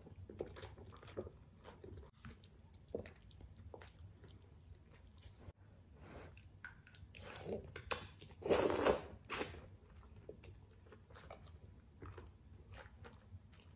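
Close-miked eating of seafood ramen: chewing with many small wet smacks and clicks, and a louder noodle slurp lasting about a second, a little past the middle.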